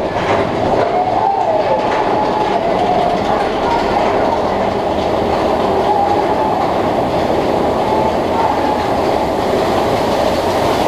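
Steel mine-train roller coaster running along its track, a loud steady rumble with a wavering squeal from the wheels.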